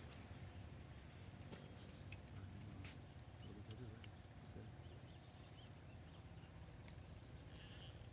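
Faint, steady high-pitched insect chirring, over a low rumble with a few soft clicks.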